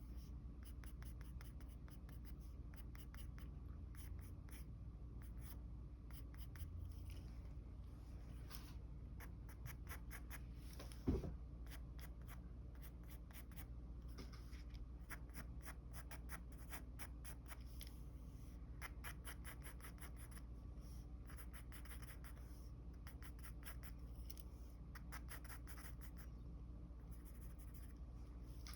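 Mechanical pencil scratching on paper in many quick, short strokes, with a single sharp knock about eleven seconds in.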